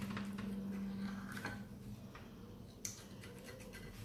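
Knife blade run around the inside edge of a glass baking dish to loosen a baked crème caramel: faint scraping with light ticks against the glass, and one sharper click about three-quarters through. A low steady hum stops about halfway.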